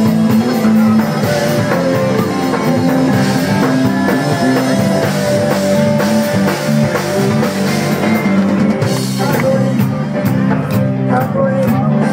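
Live rock band playing through a PA: drum kit, guitar and bass, with steady cymbal strokes standing out near the end.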